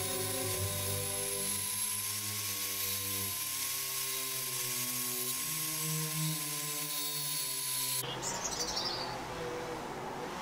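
Background music over an angle grinder grinding a chrome-vanadium steel wrench. About eight seconds in, the music drops away and a harsher grinding hiss takes over.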